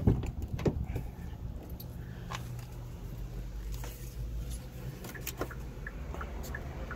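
A few knocks and handling noises in the first second, then, from about five seconds in, the Hyundai Ioniq 5's indicator ticking, a regular tick-tock of short clicks a little under three a second.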